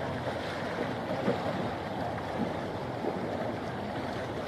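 Steady rush of wind and sea waves, an even noise with no distinct events.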